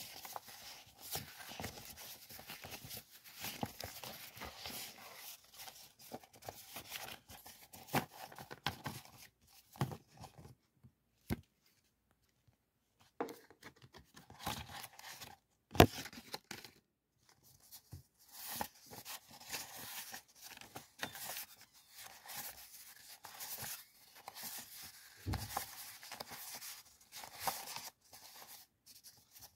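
Stacks of printed decorative paper sheets being flipped and riffled by hand: a papery rustle full of quick flicks. There is a short pause a little before the middle, and one sharp snap of paper soon after.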